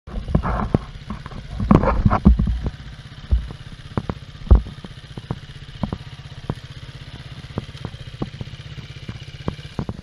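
An enduro dirt bike's engine revs in a few bursts, then runs at a steady low beat with sharp knocks and clatter over it. The engine note stops near the end.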